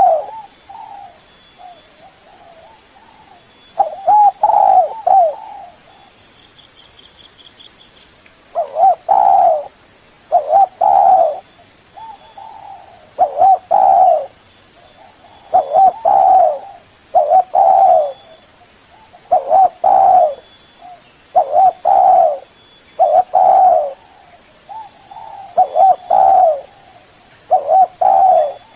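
Spotted dove cooing over and over, its phrases of low coos coming about every two seconds after a short pause near the start.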